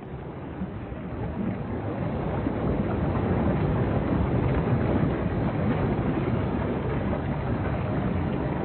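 Steady low rushing noise of wind and sea water on the microphone, growing louder over the first few seconds.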